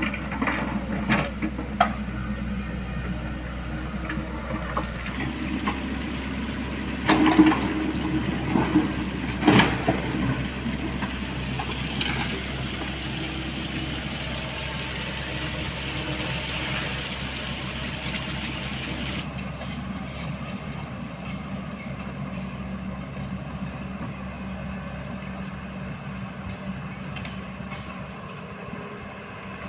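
Diesel earthmoving machinery working on a stone bed: an engine running steadily, with several loud knocks and clanks about a third of the way in and a thin high squeal that stops about two-thirds through.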